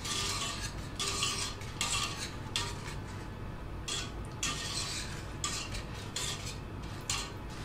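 A whisk stirring and scraping through thick melted-chocolate mixture in a stainless steel saucepan, whisking egg and vanilla into it in repeated strokes of roughly two a second.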